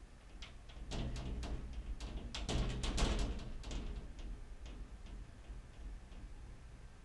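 Light clicks and taps from a cat busy at the tiled floor of a glass shower stall. They come in a quick cluster about a second in and a denser, louder run in the middle, then thin out.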